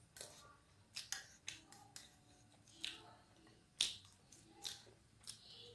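Irregular sharp clicks and taps of a metal fork against a plate while noodles are gathered up, about nine in all, the loudest a little before four seconds in.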